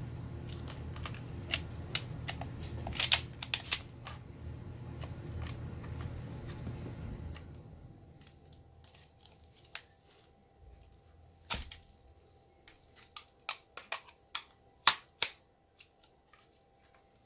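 Plastic clicks, knocks and rattles from a Nerf blaster and its long-barrel attachment being worked and pushed into place, scattered irregularly, the sharpest near the end. A low rumble under the first several seconds drops away about halfway through.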